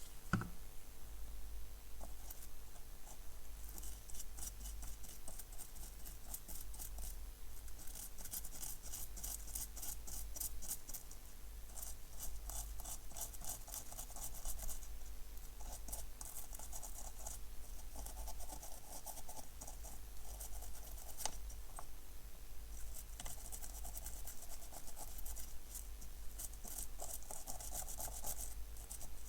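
Scratchy scrubbing on a water-damaged car key fob's circuit board as it is cleaned, in repeated spells of several seconds with short pauses between. A sharp knock just at the start.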